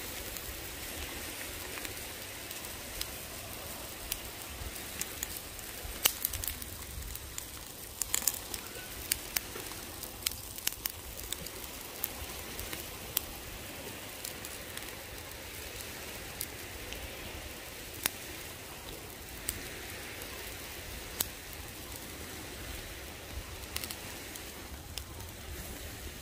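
Tomahawk steak sizzling over a very hot fire: a steady hiss with scattered, irregular sharp crackles and pops, busiest about a third of the way in.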